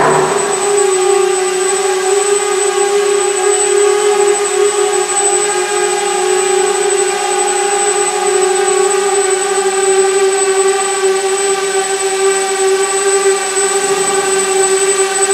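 Small quadcopter's four brushless motors and propellers running steadily as it flies: a loud, even whine at one held pitch.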